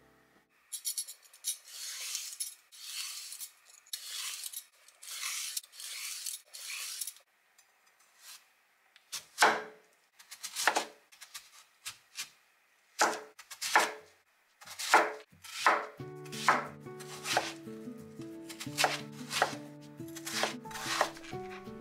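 A vegetable peeler scraping quick strokes down a daikon radish, about two a second. Then a chef's knife chopping the radish on a wooden cutting board in crisp, even cuts that come a little faster near the end, with light background music coming in over the chopping.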